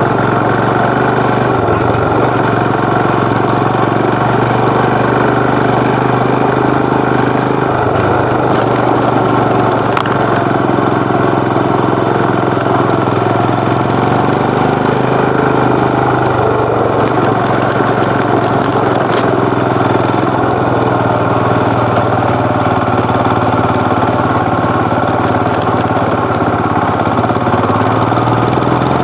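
Royal Enfield Himalayan BS6's 411 cc single-cylinder engine and exhaust running steadily while the motorcycle is ridden, at an even pace with no big revs. Two brief clicks are heard, about ten and nineteen seconds in.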